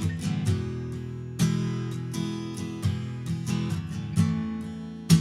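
Acoustic guitar strummed without vocals, chords ringing between strokes, with a sharp, loud strum just before the end.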